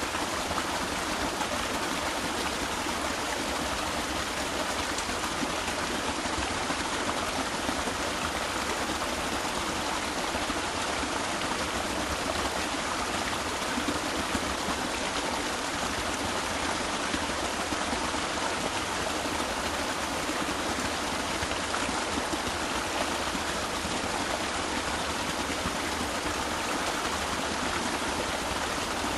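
Small stream of water flowing over and between rocks, a steady babbling rush.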